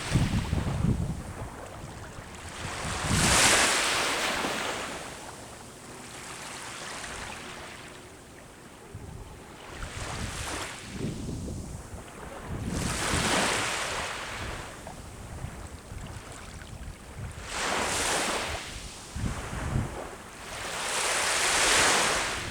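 Sea waves breaking on the shore: about five washes of surf, each swelling to a hiss and fading every few seconds, with wind rumbling on the microphone.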